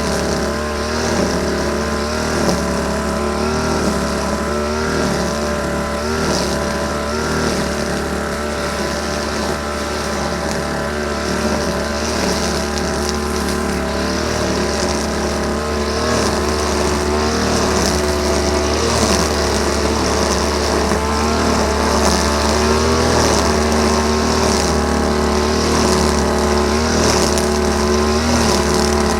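Small petrol engine of a grass-cutting machine running steadily at working speed, its pitch wavering a little as it cuts, getting slightly louder about halfway through.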